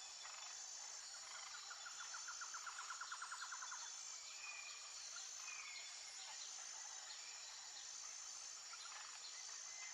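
Faint natural outdoor ambience: a steady high-pitched hiss, a rapid even trill of about eight notes a second lasting a couple of seconds, and a few short whistled calls later on.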